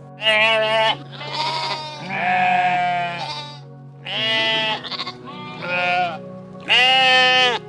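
Sheep bleating, about six separate bleats in a row, over steady background music.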